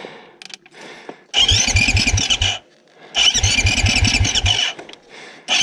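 Beta 500 dirt bike's electric starter cranking the four-stroke single, two tries of just over a second each, about six compression pulses a second under a high starter whine; the engine does not catch, and a third try begins at the very end.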